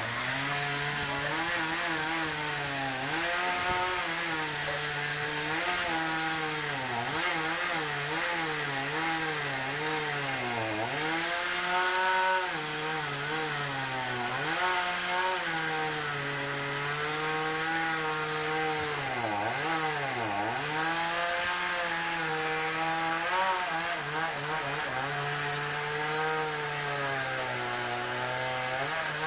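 Two-stroke chainsaw running while cutting tree limbs, its engine pitch constantly rising and falling as it revs and bogs under load. It sags lowest twice, about ten and twenty seconds in.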